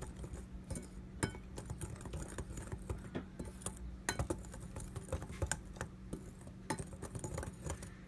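Wire whisk stirring dry pancake flour mix in a bowl, its wires clicking and tapping against the bowl in quick, irregular strokes.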